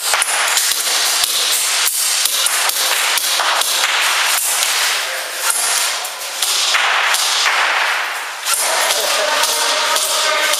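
Airsoft guns firing in rapid, dense strings of sharp cracks and clicks.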